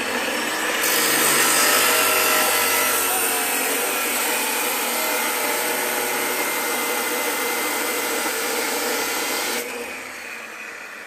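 A power tool running steadily, a loud rushing noise with a faint whine in it, which drops away sharply near the end.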